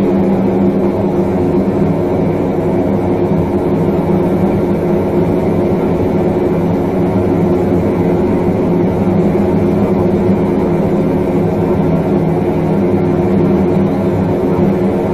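A vehicle's engine running steadily at low revs with an even hum, heard from inside the cab.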